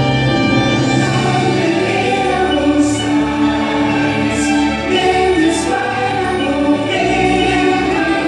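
Choir singing with an orchestra in sustained chords: the music of a castle fireworks show.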